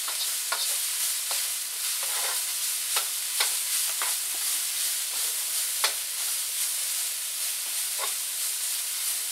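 Broccoli sizzling in a hot wok, stirred with a wooden spoon that scrapes and knocks against the pan at irregular moments over a steady frying hiss.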